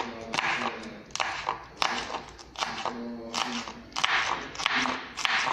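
A knife dicing a hot green pepper on a wooden cutting board: a run of sharp chops, roughly two a second.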